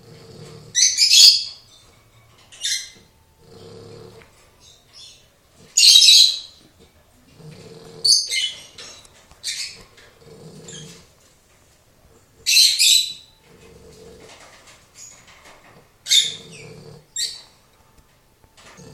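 Snoring in a steady cycle about every three to four seconds: a low, buzzy snore on one breath alternating with a louder, high, whistling hiss on the other.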